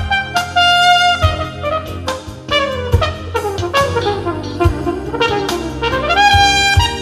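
Recorded jazz played through Jamo S606 loudspeakers: a brass horn holds long notes over a bass line and sharp drum hits, with a phrase in the middle that slides down in pitch and climbs back up.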